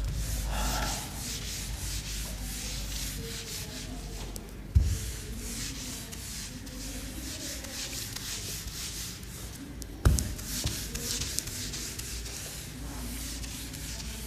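Whiteboard duster rubbing back and forth across a whiteboard, wiping off marker writing in quick repeated strokes. Two sharp knocks, about five and ten seconds in.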